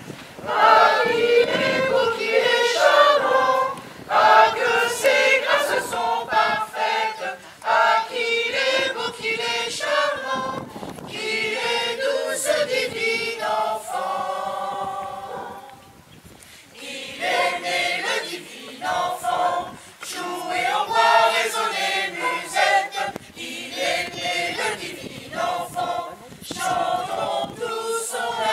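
Choir singing, the phrases breaking off briefly about halfway through before the singing resumes.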